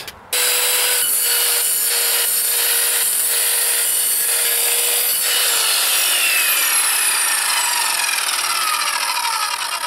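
Evolution R210SMS sliding mitre saw's 1500-watt motor starting up and its blade cutting through timber with nails in it. About five and a half seconds in the motor is switched off and the blade winds down with a falling whine.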